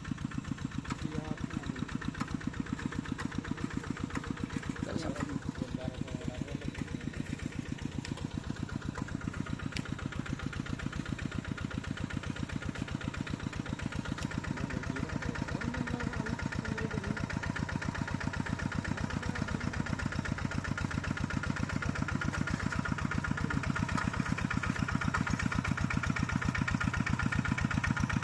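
Tractor engine running steadily with an even, rapid firing beat, slowly growing louder over the second half.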